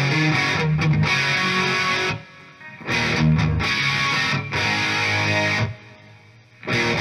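Distorted electric guitar played through a Marshall 1959SLP tube amp head, slaved into a second amp and run from a variac, picked up by a microphone. The playing breaks off briefly twice, a little after two seconds and near six seconds.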